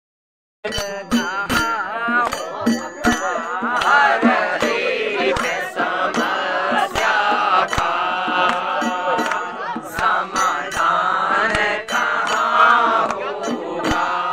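A group of men singing a Holi folk song together in a chant-like unison, with a drum struck with a stick beating along. It starts abruptly after a brief silence.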